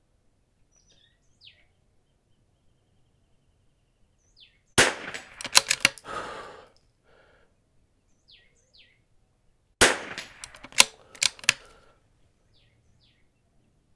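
Two shots from a scoped bolt-action .22 LR rimfire rifle, about five seconds apart. Each is followed within about a second by a quick run of sharper clacks.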